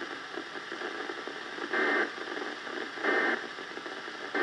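Weather radio receiver tuned to a NOAA Weather Radio broadcast, putting out steady static hiss from a weak signal, with three short louder surges of crackly noise about one every second and a half.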